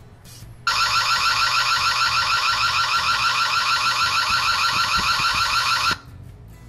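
Ring Floodlight Cam's built-in siren sounding: a loud electronic alarm tone with a rapid warble. It starts about a second in and cuts off suddenly about six seconds in, reading around 104 dB on a sound level meter held up to it.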